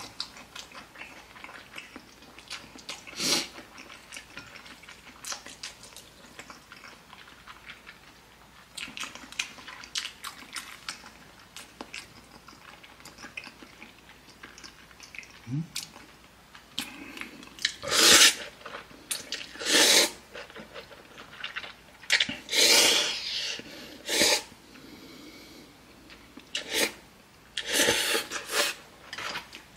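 A person eating spicy ramen noodles. There is soft chewing and small mouth noises for about the first half. Then comes a series of loud slurps and puffs of breath, several seconds apart, in the second half.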